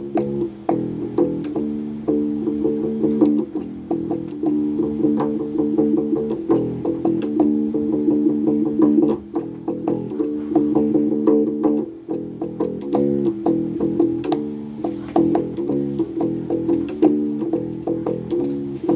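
Bass guitar played solo: a continuous run of quick plucked notes, with a brief dip about twelve seconds in.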